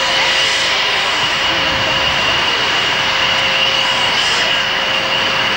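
F-16 fighter's jet engine running with a steady rushing sound and a constant high whine as the jet rolls along the runway.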